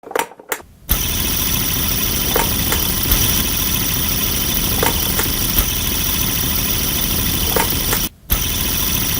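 An engine starting with a few short sputters, then running steadily; it cuts out briefly near the end and picks up again.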